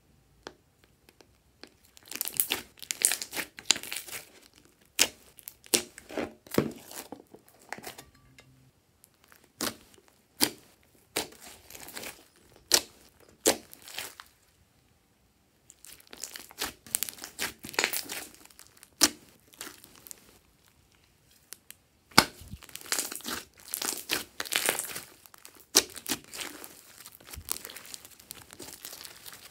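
Hands stretching, folding and pressing glossy slime, giving off sticky crackles and popping clicks in bursts of a few seconds with short quiet pauses between.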